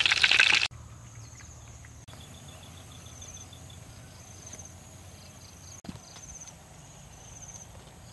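Fish sizzling as it fries, loud, cutting off abruptly within the first second. Then quieter forest ambience with insects chirping in short, repeated pulsed trills.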